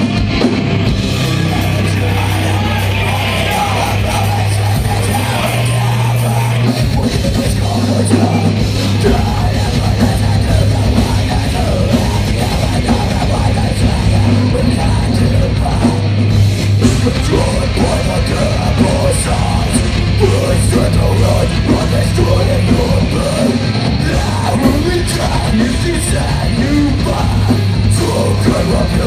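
Live metalcore band playing loudly without a break: distorted guitars, bass and drums, with screamed vocals.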